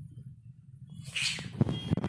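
Persian cats breaking apart at the end of mating: a short hiss about a second in, followed by two sharp knocks. A car horn starts sounding right at the end.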